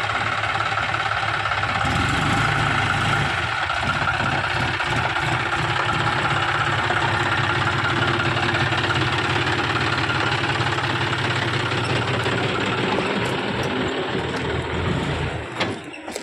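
John Deere tractor's diesel engine running steadily, cutting off near the end.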